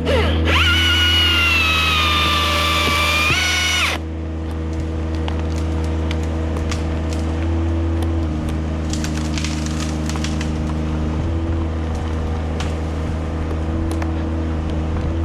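An engine running steadily at a low, even speed. For the first four seconds a high whine sits over it, sagging slightly and then stepping up just before it stops. Scattered clicks and knocks follow.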